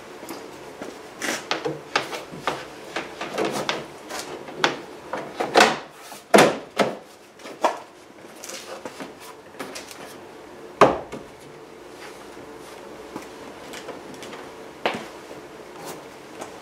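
Plastic interior trim panel of a third-generation Camaro's rear hatch being handled and pushed into place against the hatch: a run of knocks, clicks and rubbing, busiest in the first half, with one sharp knock about two-thirds through and a softer one near the end.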